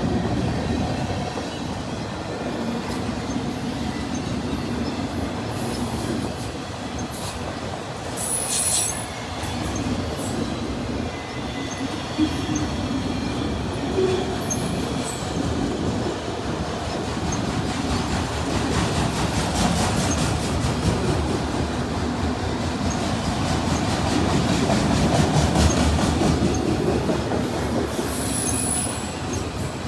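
Train cars rolling past, steel wheels clacking over rail joints, with brief high-pitched wheel squeals twice.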